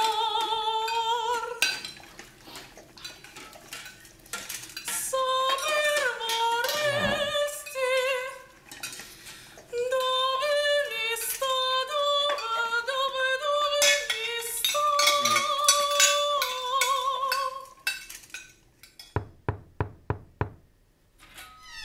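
High operatic singing with a wide vibrato, in held notes broken by short pauses, with scattered clinks throughout. Near the end the singing stops and a quick run of about seven sharp knocks follows.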